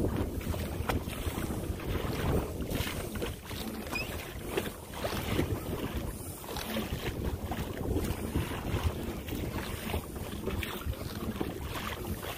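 Wind buffeting the microphone over water sloshing against a kayak under way, an uneven rushing noise with no engine tone.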